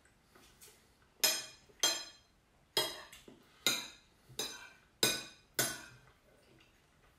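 Metal spoon clinking against a ceramic soup bowl while scooping soup, about seven sharp clinks each ringing briefly.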